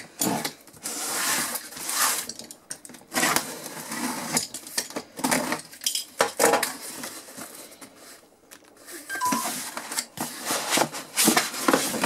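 A cardboard shipping box being opened: packing tape cut with a utility knife and the flaps pulled back. An irregular run of scraping, ripping and rustling noises.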